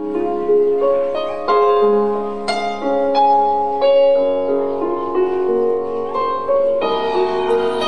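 Instrumental music intro played on a piano-like keyboard, with sustained chords and melody notes struck about every half second to a second.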